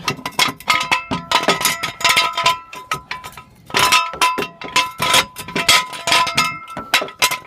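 Steel jack stands being set under a jacked-up car: rapid metal-on-metal clanks and clinks that ring, in two bursts with a short pause between.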